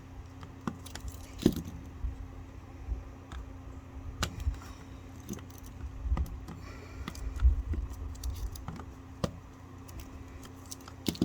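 Pocket knife working at a plastic surge protector case: irregular sharp clicks, scrapes and small knocks of the blade and plastic, with dull thumps as the strip is handled.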